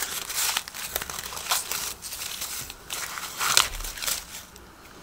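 Dry corn husks rustling and crackling as they are pulled by hand off a cob of popcorn maize, in a run of irregular short rips that die away near the end.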